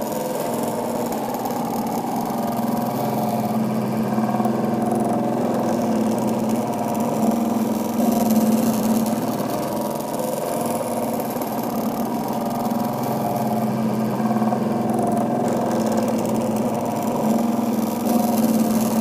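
Small stepper motors from salvaged DVD drives driving the sleds of a mini X/Y table, a steady buzzing hum of a few fixed pitches that swells and eases slightly as the moves change.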